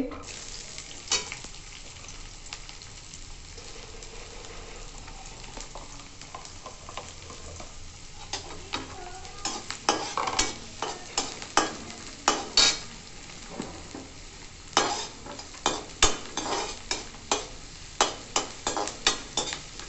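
Chopped onions sizzling as they fry in hot ghee in an aluminium kadhai, softening. A long perforated metal spoon scrapes and clanks against the pan as they are stirred, the strokes coming quick and irregular from about eight seconds in.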